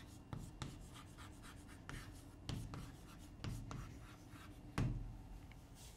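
Chalk writing on a blackboard: a string of faint, short scratches and taps as a word is written, with one firmer tap about five seconds in.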